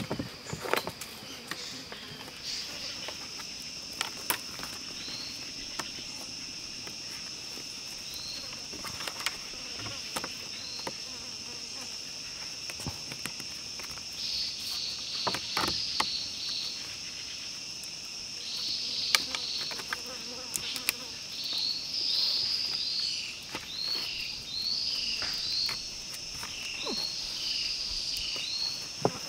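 Steady high-pitched drone of an insect chorus in jungle. From about halfway through, short chirping calls repeat over it, and a few sharp clicks and knocks stand out here and there.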